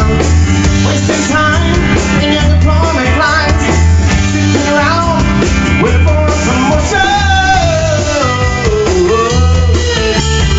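Rock band music with a steady bass-and-drum beat, and a melodic lead line sliding up and down over it in the second half.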